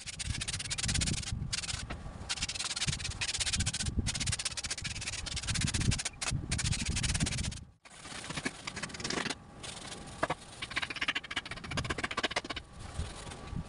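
A pad being rubbed back and forth over a woven rattan cane chair seat, a rough scrubbing noise that keeps breaking off briefly.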